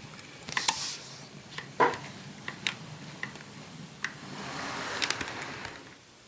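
Model locomotive running along the track: a low motor hum with scattered sharp clicks. A hiss swells about four and a half seconds in, then falls away as it passes.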